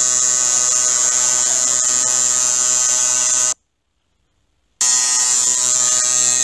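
Tattoo machine buzzing steadily while tattooing the skin of a neck. The buzz cuts out completely for about a second just past the middle, then resumes unchanged.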